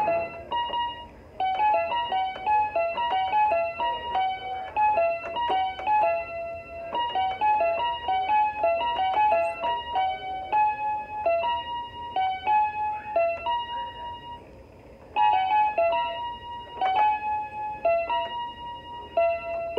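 Keyboard piano playing a simple melody one note at a time, each note struck cleanly and fading, with a short pause about two-thirds of the way through before the tune picks up again.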